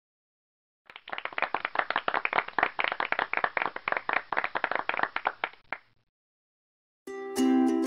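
Clapping and applause sound effect, about five seconds of dense hand claps that stop abruptly, played as the quiz's correct answer is shown. Near the end, plucked ukulele music starts.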